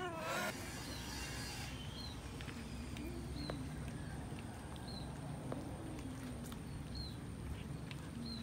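A crowd of cats eating raw chicken: faint chewing and smacking with scattered small clicks, just after a cat's meow at the very start. A short high chirp repeats about every second and a half in the background.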